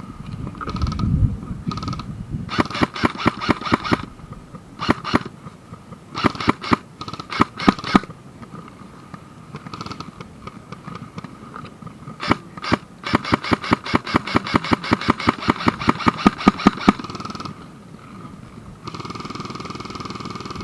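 Airsoft guns firing in rapid automatic bursts: strings of sharp, evenly spaced cracks, several short bursts and then a long one of about four seconds. A steady hiss comes in near the end.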